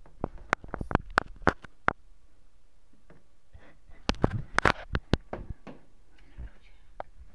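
Whippet's claws clicking and tapping on a wooden floor as it paws at a beetle. A quick run of sharp clicks comes in the first two seconds, then another cluster about four seconds in.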